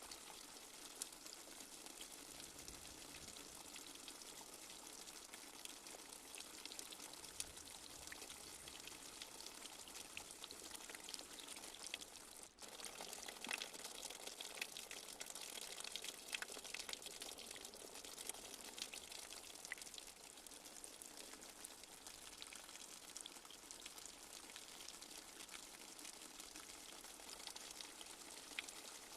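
Light rain falling steadily, a soft hiss full of fine drop patter and drips. About twelve seconds in it cuts out for a split second, then comes back slightly louder.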